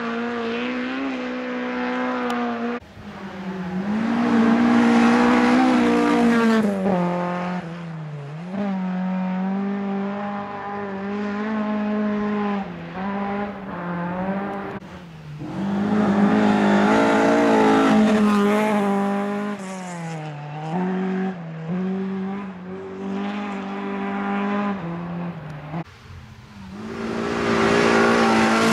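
Rally cars driven hard one after another on a gravel stage, including a Ford Escort RS 2000, their engines revving up and dropping back through gear changes. The engine note changes abruptly several times as one car's run gives way to the next.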